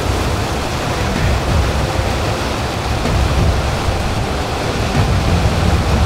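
Water cascading over boulders in a mountain stream: a steady, loud rush.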